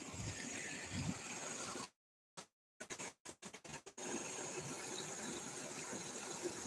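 Water pouring from a concrete outlet and splashing into a canal, a steady rushing noise. The sound drops out completely several times between about two and four seconds in.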